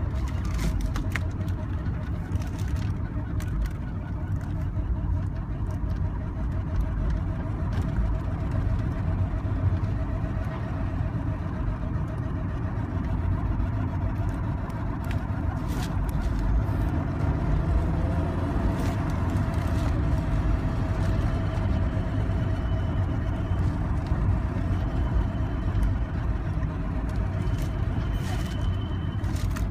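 1991 Honda CRX Si driving, with a thin, wavering squeak-squeal over steady road and engine rumble. The owner says the squeal quickens with road speed, not engine revs, and carries on with the brakes applied, and new rotors and brake pads have not cured it. A fainter, higher tone comes and goes near the end.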